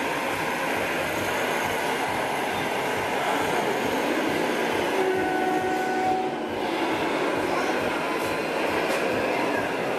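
Radio-controlled model semi-trucks running, their electronic sound modules playing diesel-engine noise as a steady din that fills the hall. A few faint steady tones come in briefly about five to six seconds in.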